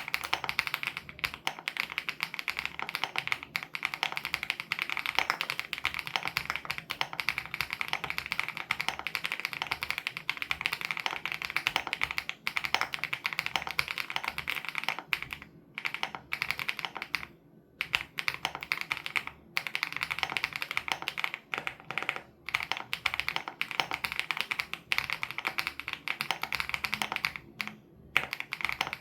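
Fast, continuous typing on a WOB Crush 80 Reboot custom mechanical keyboard with Hyacinth switches: dense key clicks with brief pauses between bursts.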